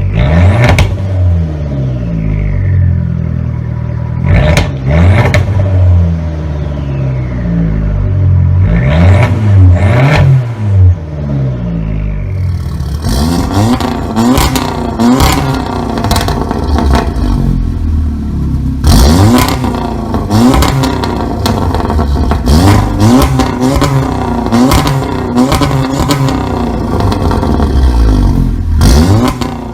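A performance car's engine revving repeatedly, its exhaust letting out sharp pops and bangs on overrun as the throttle is released. About 13 seconds in, the sound turns into a dense run of rapid crackles and pops over the repeated revs.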